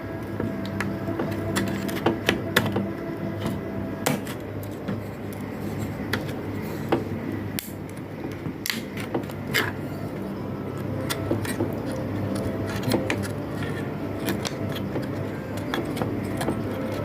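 Irregular small clicks and taps of tools against a circuit board and its parts, over a steady hum.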